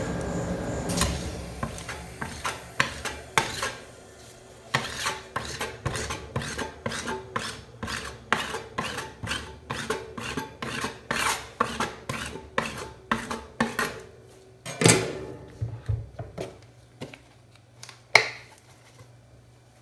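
Metal spatulas clicking and scraping on a steel rolled-ice-cream cold plate in a quick run of short strokes, about two or three a second. Near the end come two louder single clacks of metal on the plate.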